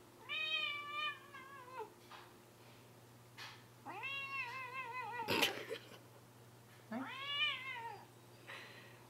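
Tabby cat giving three long, drawn-out whiny meows, each falling in pitch at the end. A brief sharp noise cuts into the middle of the second meow.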